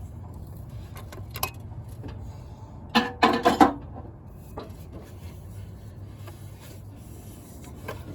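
Hand tools clinking against metal: a short clatter of several clinks about three seconds in, with a few lighter clicks before and after, over a steady low hum.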